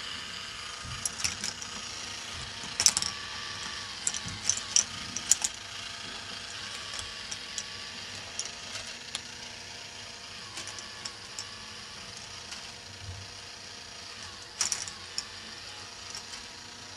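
K'nex ball lift running: irregular plastic clicks and clacks of the balls and parts being lifted and dropped over a steady hum. Louder clusters of clacks come about three to five seconds in and again near the end.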